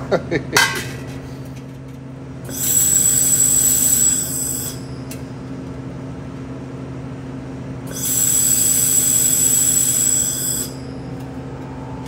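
Handheld laser welder firing twice on stainless steel, each a hissing burst of about two seconds with a high whine, over a steady low hum. A few short clicks come right at the start.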